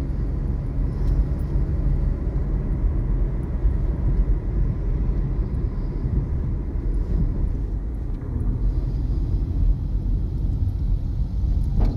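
Steady low rumble of a car driving along a street, its engine and tyre noise heard from inside the cabin.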